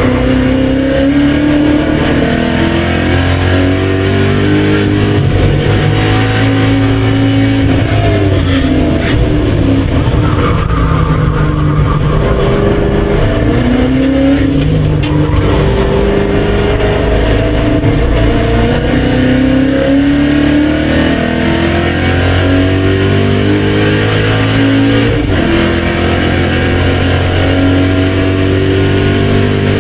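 BMW M5 E39's 4.9-litre V8 under hard driving on a race track: the engine note rises under acceleration and drops back several times through gear changes and lifts.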